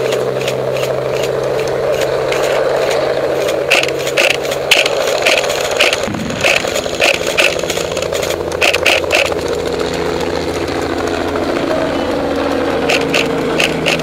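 Light helicopter flying overhead: a steady engine and rotor drone. From about four seconds in, short clusters of sharp clicks sound over it several times.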